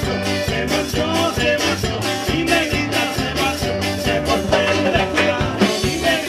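Live band playing upbeat Latin dance music, with a steady beat and a bouncing bass line.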